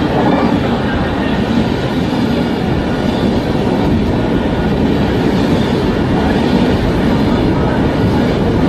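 Indian Railways express train hauled by a WDP-4D diesel locomotive running, a steady loud rumble and hum that does not let up.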